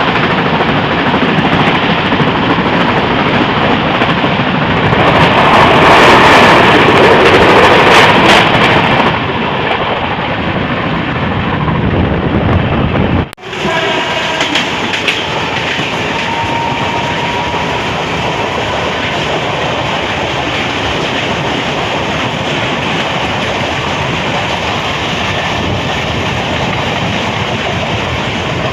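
Mumbai suburban local train running on the track: a steady noise of train and rails, louder for a few seconds about five seconds in, with a sudden brief break about halfway through before the same steady running continues.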